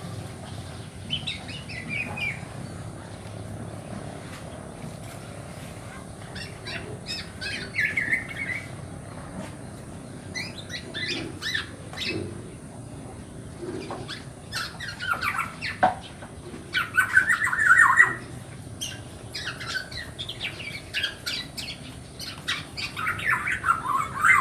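Black-naped oriole chicks calling: bouts of quick, rapidly repeated notes that come and go, loudest a little past halfway and again near the end.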